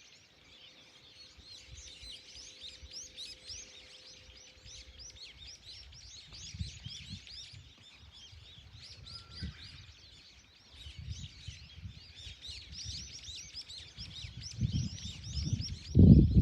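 A flock of small birds chirping all together in a dense, continuous chatter of short, rapid high chirps. Near the end, low rumbling bursts, louder than the birds, come in.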